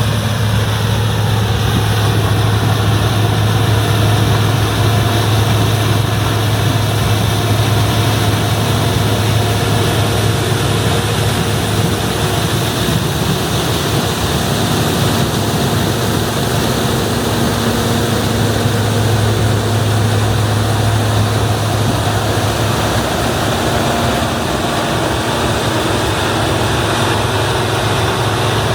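International Harvester 1460 combine running steadily while harvesting corn: a constant low engine drone with the even mechanical noise of the machine.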